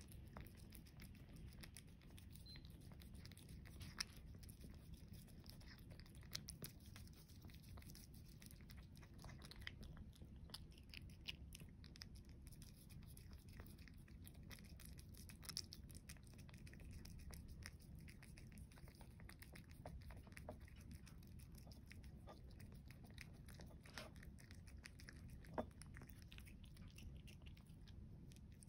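A Korat cat eating dried bonito flakes from a small ceramic saucer: faint, steady chewing and licking with many soft clicks and a handful of sharper clicks scattered through.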